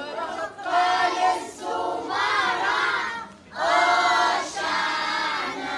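A group of young children, joined by women, chanting loudly in unison in short repeated phrases.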